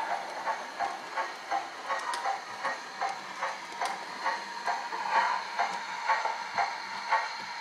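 Zimo sound decoder in a Hornby 00 gauge model of the LNER A4 Bittern, playing steam-locomotive exhaust chuffs through the model's small speaker. The chuffs come as a steady beat of about three a second over a light hiss while the model runs.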